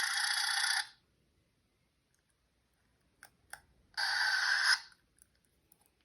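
Traintech sound capsule's tiny speaker playing a thin, tinny locomotive sound effect that cuts off abruptly just under a second in. A couple of faint plastic clicks from handling follow, then a second short burst of the same sound plays just after four seconds in.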